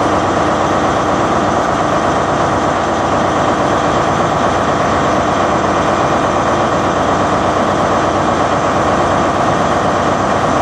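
A vehicle running steadily: a loud, even noise with no change in pitch.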